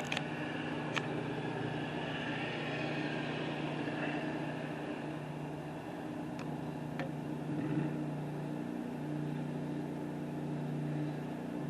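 Cement mixer truck's diesel engine running steadily, with a few faint clicks.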